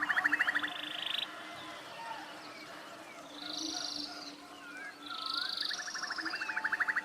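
Forest chorus of birds and other animal calls, several callers overlapping. A rapid pulsed trill sounds at the start and again near the end, with buzzy calls and short whistled up-and-down notes in between, over a faint steady hum of calling.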